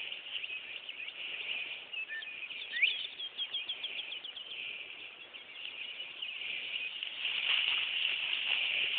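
A bird singing a short phrase about three seconds in: a rising note followed by a quick trill of about a dozen notes, over a steady high hiss.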